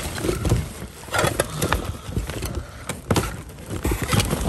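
Hands rummaging through a cardboard box of household items, with a steady run of irregular rustles and small knocks as things are shifted around.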